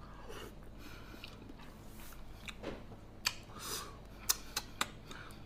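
Close-miked chewing of a soft piece of braised winter melon, with wet mouth sounds and a few short, sharp clicks in the second half.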